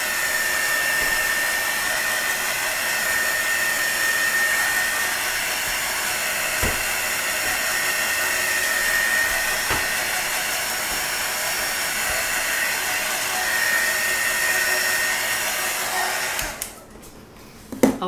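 Electric hot-air blower running steadily with a faint high whine, blown over wet acrylic pour paint to pop the air bubbles. It switches off abruptly near the end.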